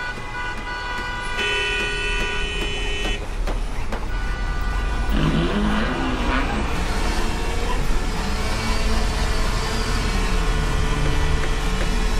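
Street traffic: car engines running with car horns honking, including a long horn blast from about a second and a half to three seconds in. The traffic grows louder over the first couple of seconds and then holds steady.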